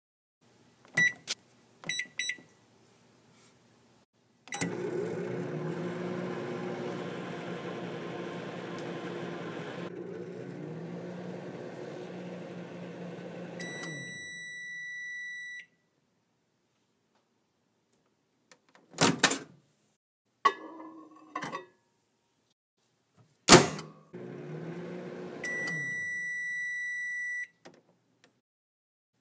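Microwave oven: two short keypad beeps, then it runs with a steady hum for about nine seconds and finishes with a long beep. After a couple of loud clunks and a brief rattle at the door, it runs again for a few seconds and gives another long beep.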